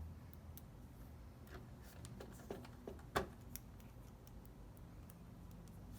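Small screws being driven back into a PlayStation 4 Slim's chassis with a screwdriver: faint, scattered clicks and ticks, with one sharper click about three seconds in.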